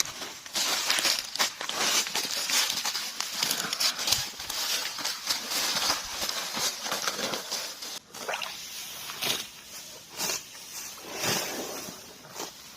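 Water buffalo grazing: grass being torn and chewed in a run of crisp rips and crunches, dense at first and thinning to separate bites after about eight seconds.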